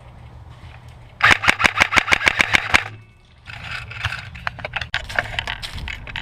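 Airsoft electric rifle firing a full-auto burst of about eight shots a second for nearly two seconds, starting about a second in, followed after a short pause by scattered sharp clicks.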